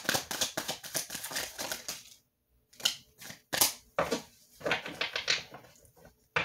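Tarot cards being handled: a quick run of rapid card clicks for about two seconds, then a few separate snaps and taps as single cards are handled.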